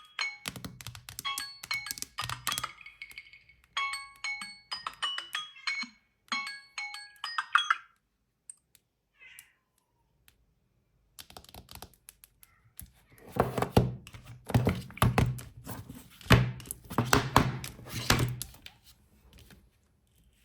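A smartphone ringtone plays a short melodic, marimba-like phrase over and over for about eight seconds. After a brief pause comes a run of loud, irregular thuds and knocks lasting about seven seconds.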